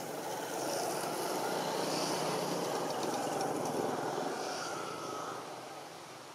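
Engine noise of a passing motor vehicle, growing louder over the first second and fading away about five seconds in.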